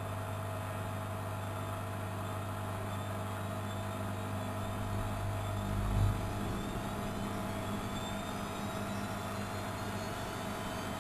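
Studio WM26AAA washing machine running, a steady low motor hum with a faint whine that slowly climbs in pitch. About six seconds in there is a single dull thump, after which the low hum shifts.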